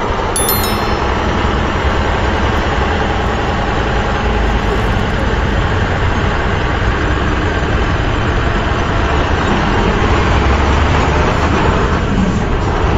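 A truck engine idling steadily: a loud, even, low rumble.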